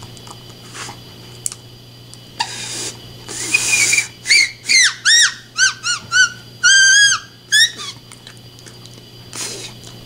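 An American Robin songbird whistle held on the tongue, blown first in a couple of breathy puffs, then in about eight short, high chirps that arch up and fall in pitch, with one held note near the end. The chirps are uneven, a first attempt that needs more practice.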